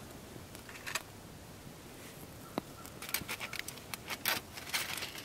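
Aluminium foil crinkling and small clicks as hands handle a foil-wrapped soda-can alcohol stove. There is one rustle about a second in, then a quick run of short crinkles and clicks in the second half.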